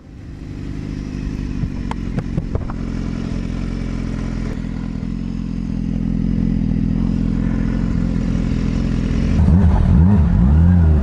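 Sport bike engine running under way at a steady note, with a few light clicks of clatter about two seconds in. Near the end the engine pitch swings up and down a few times.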